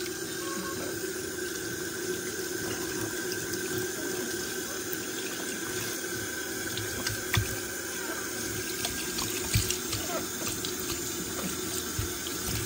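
Tap water running steadily from a faucet into a utility sink, splashing onto a capuchin monkey sitting under the stream. A couple of brief knocks in the second half.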